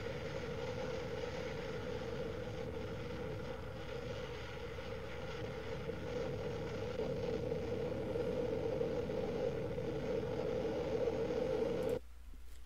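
Hurricane Irma's winds blowing against a live camera's microphone: a steady rushing noise with a droning tone in it, which stops suddenly near the end.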